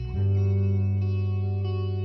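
Background music: held chords ringing steadily, with a change of chord just after the start.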